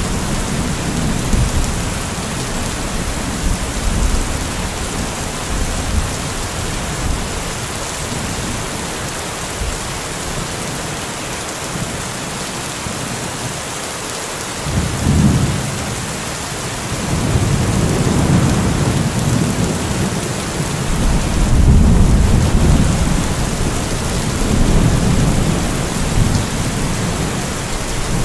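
Steady heavy rain hissing, with thunder rumbling underneath. The rumbles ebb away about halfway through, a short one comes in after that, and longer rolls swell and fade to the end.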